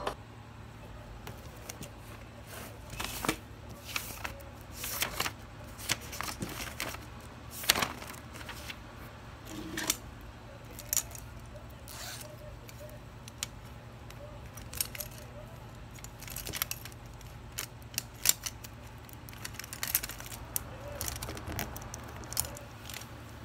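Pens and pencils clicking and rattling inside a mesh pencil pouch as a hand rummages through it, in irregular light clatters over a faint steady hum.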